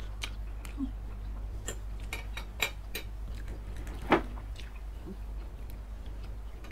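Close-miked chewing of satay meat, with sharp wet mouth clicks and smacks scattered through, loudest a little after four seconds in, over a steady low hum.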